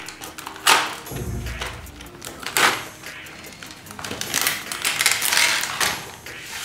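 Plastic blister tray of doll shoes and accessories and its cardboard backing being handled and pulled apart: irregular crinkling, rustling and clicking of plastic and card, with a few sharper clacks.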